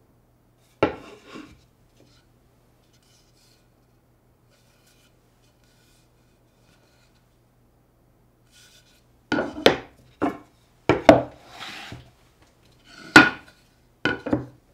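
Plywood parts knocked and slid on a wooden workbench top: a single knock about a second in, then a run of wooden knocks and scrapes from about nine seconds on.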